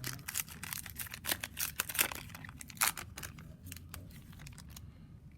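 Trading-card pack wrapper being torn and crinkled open by hand: a quick, uneven run of crackles and small tearing sounds that stops about five seconds in.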